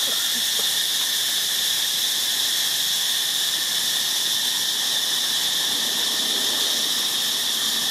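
Steady, high-pitched chorus of insects, one unbroken drone.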